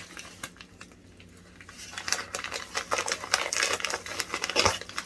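Shipping envelope being opened, with a dense run of crackling, rustling and tearing of the packaging starting about two seconds in and a single knock near the end.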